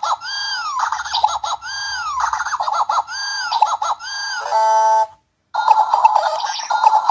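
Sound chip of a capsule toy playing a repeating synthesized sound effect: a tone that rises, holds and falls, then a quick warble, about once every 1.2 seconds. Near the end a held buzzy beep cuts off, a brief silence follows, and a different warbling electronic sound begins.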